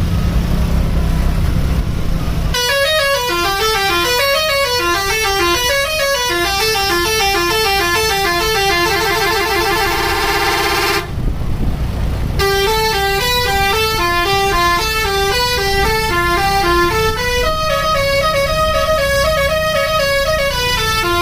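Bus telolet horn playing a stepping multi-note melody that speeds up into a fast trill, breaks off for about a second, then starts a new tune. The bus's engine runs underneath, alone for the first couple of seconds.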